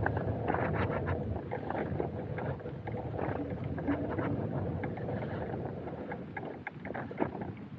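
Freight train passing close by: a steady rumble of wagons with repeated sharp clacks of the wheels on the track.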